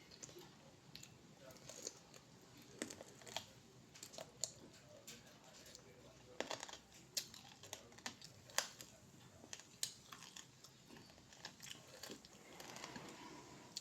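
Close-miked eating: irregular sharp clicks and crunches of a person chewing food, with a short rougher stretch near the end.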